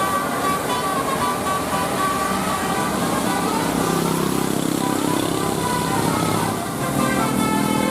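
Tour bus 'telolet' musical horn playing runs of held notes, a melody of changing pitches, over a steady hiss of heavy rain and road traffic.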